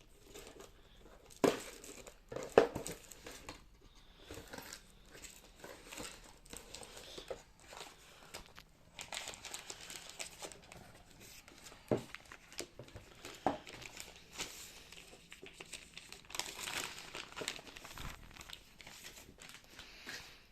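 Close handling noise: irregular rustling and crinkling, with a few sharp knocks, two near the start and two around the middle.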